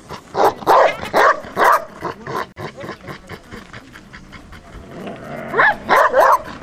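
Doberman barking in quick runs at a helper's rag during early bite training: about four loud barks about a second in, then three or four more, yelpier barks near the end.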